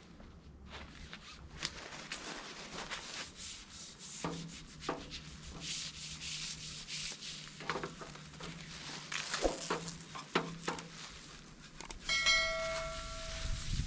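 Rough rubbing and scraping with frequent knocks as a long brush-headed cleaning pole is handled and worked up toward a road sign. Near the end, a chime with a click from a subscribe-button animation.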